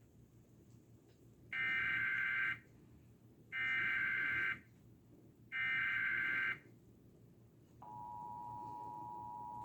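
Emergency Alert System SAME header: three one-second bursts of digital data tones, about two seconds apart. Near the end comes the EAS two-tone attention signal, a steady two-pitch tone that marks the start of a severe thunderstorm warning.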